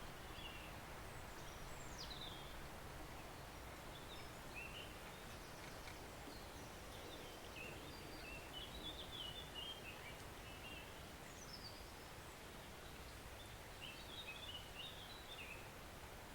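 Small woodland stream running with a soft, steady rush, while songbirds chirp and whistle over it in short phrases, several quick notes clustered about halfway through and again near the end.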